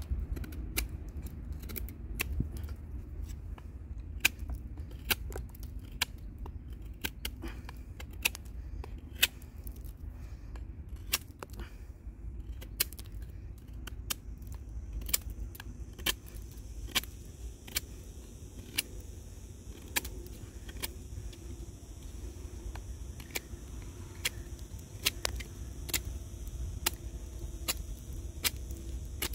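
Wooden baton knocking on the spine of a Kubey 269 fixed-blade knife as it is driven down through a branch to split it. Sharp, irregular knocks come about one or two a second over a low rumble.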